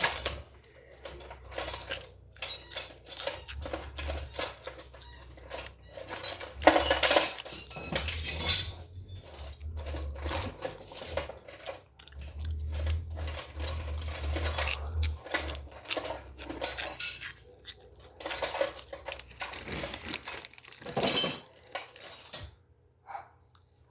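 Metal tools and parts clinking and clattering as they are handled, in many irregular knocks and clicks with a few louder clusters.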